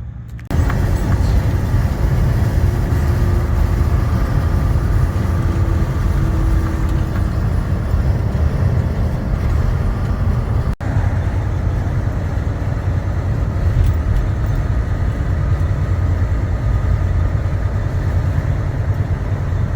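Truck towing a trailer, driving at road speed: a loud, steady low rumble of engine and road noise. The sound drops out for an instant about eleven seconds in.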